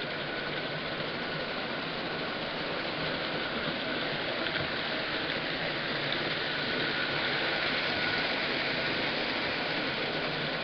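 Marx tinplate locomotives pulling Lionel cars on O27 three-rail track: a steady rumbling whir of wheels and electric motors, with a faint steady whine.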